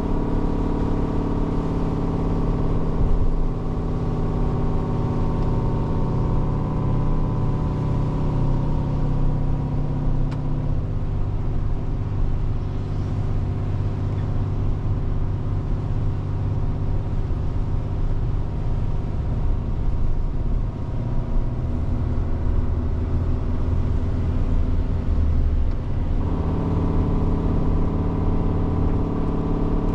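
Heavy truck's diesel engine running steadily, heard from inside the cab, its pitch stepping to a new level a few times.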